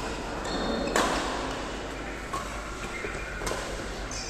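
Badminton rally: sharp cracks of racket strings hitting a shuttlecock, the loudest about a second in and more near three and three and a half seconds, with short high squeaks echoing in a hall.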